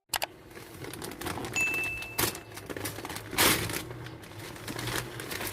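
Gift packaging being handled and unwrapped: crinkling and rustling with sharp clicks, louder bursts about two seconds in and again about a second later, and a brief high squeak just before the first burst.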